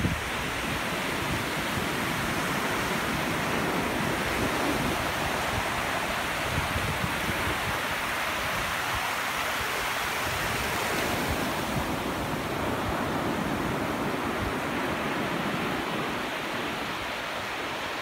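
Ocean surf breaking and washing up onto a flat sandy beach: a steady rushing hiss of waves.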